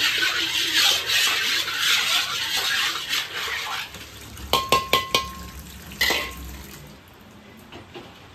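A wok being scrubbed out under a running tap at a metal sink, a steady scraping and splashing, then a quick run of metal clanks with a short ring as the wok and utensil knock against the sink, and one more clank a second later.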